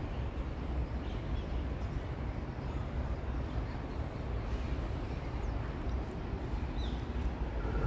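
Steady outdoor background noise, a low rumble without any distinct event, with a faint short chirp near the end.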